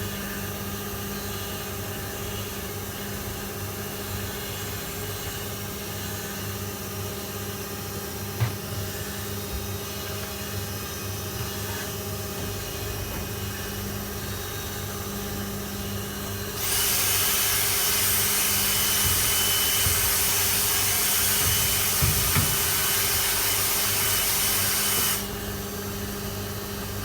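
Hoover Keymatic De Luxe 3243H washing machine running its wash with a steady motor hum as the drum tumbles, and a single knock about a third of the way in. About two-thirds of the way through, a loud steady hiss starts suddenly, lasts about eight seconds and cuts off sharply.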